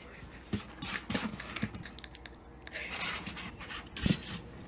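A cat scrabbling inside an empty plastic cat-litter jug and climbing out of it: its claws scratch and tap irregularly on the hollow plastic, with a thump about four seconds in as it heaves itself over the rim.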